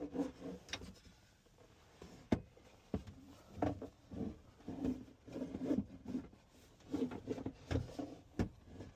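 Plastic armrest of an Infiniti QX80 center console being worked back onto its slots: short bouts of plastic rubbing and scraping, with a few sharp clicks and knocks.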